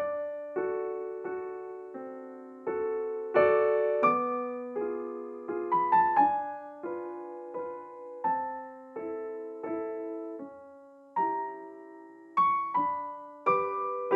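Slow background music on solo piano: single notes and small chords struck one after another and left to fade.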